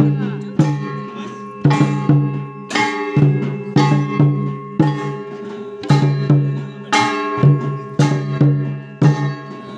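Santali folk percussion: tumdak' barrel drums and hand-held metal gongs struck with sticks, playing a steady beat of about one loud stroke a second, the gongs ringing on between the strokes.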